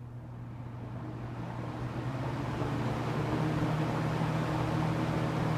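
1975 Galaxy (Lasko) Model 3714 box fan running on high with its older wide "fat blade" set: a steady motor hum under a rush of air that grows louder over the first couple of seconds as the blades come up to speed, then holds steady. This is the classic wide-blade Lasko spatter sound.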